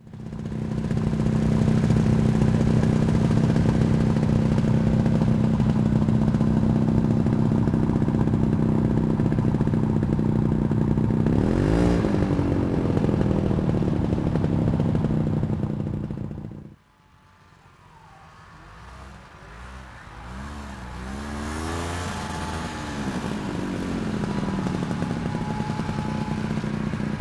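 Snowmobile engine running at a steady speed, with a brief rev up and back down near the middle. It then cuts off abruptly to a much quieter level and builds back up, rising and falling in pitch several times before settling into a steady run.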